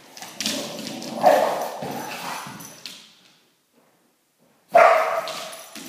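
Dogs barking during rough play between a boxer and a dachshund. There is a loud bark about a second in and another just under five seconds in, and the sound cuts out for over a second between them.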